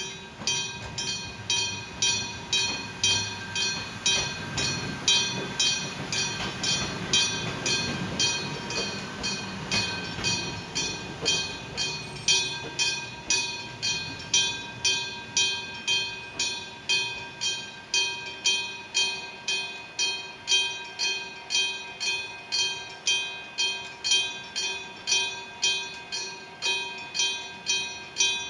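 Railway level-crossing warning bell of the striking type (a hammer hitting a bell), struck steadily about twice a second, each strike ringing on. Under it, a passing train's rumble grows and then fades away in the first half.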